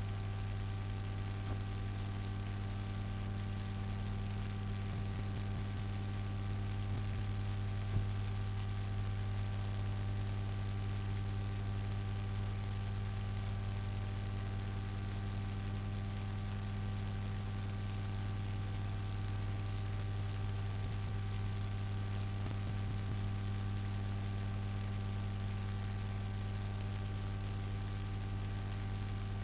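Steady electrical mains hum, a low buzz with a stack of overtones, over a constant hiss. A faint click comes about eight seconds in.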